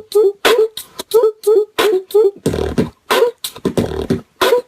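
Human beatboxing: a quick, steady rhythm of short pitched vocal blips alternating with sharp hissing snare-like hits, broken about halfway through by two longer low buzzing sounds.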